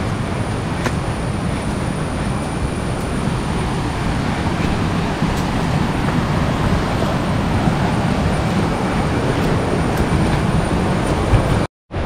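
Steady rush of stream water, with a few faint clicks over it. The sound cuts out for a moment near the end.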